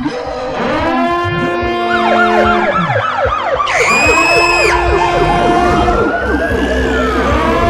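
Emergency vehicle siren sounding over held music notes: a fast up-and-down yelp in the middle, then a slow wail that rises and falls near the end.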